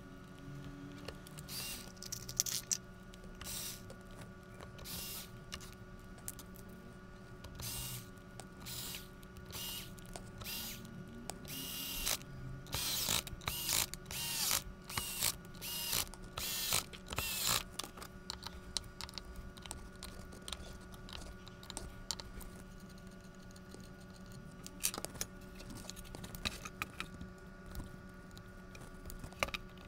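Sharp clicks and rattles of a screwdriver working screws on a metal-backed motor controller board, coming thick and fast about twelve to eighteen seconds in. Fewer clicks follow as the plastic cover and its ribbon cable are handled near the end. A steady low hum runs underneath.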